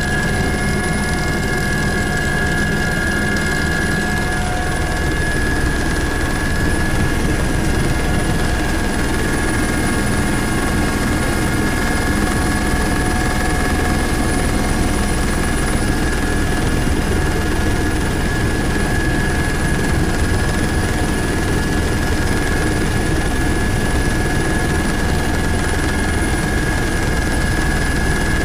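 Helicopter engine and rotor noise heard from inside the cabin: a steady drone with a constant high whine over it.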